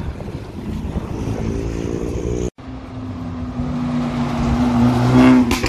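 Modified cars driving off on a wet road, with engine and tyre noise; after a brief cut, an approaching car's engine holds a steady note that grows louder, then two sharp cracks come near the end.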